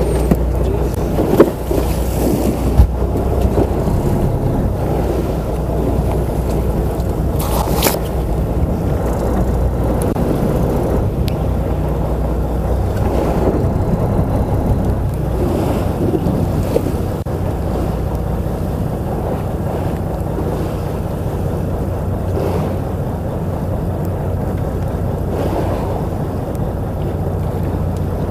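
Wind buffeting the microphone on a fishing boat at sea, with waves against the hull over a steady low drone. Two sharp knocks about one and a half and three seconds in.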